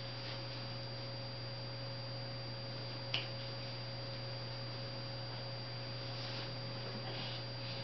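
Steady low electrical hum with faint high steady tones under it, and a single short click about three seconds in.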